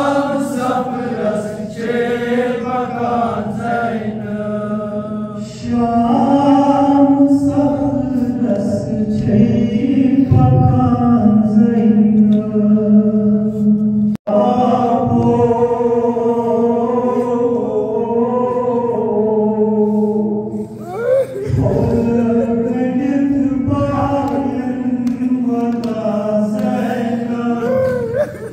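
Kashmiri noha: a male reciter chanting a mournful lament in long, held notes through a microphone and PA, with other men's voices joining in chorus. The sound drops out for an instant about halfway through.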